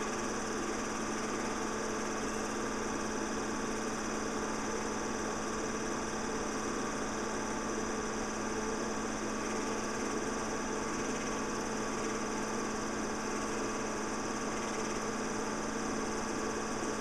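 Home-movie film projector running: a steady mechanical whirr and hum that does not change.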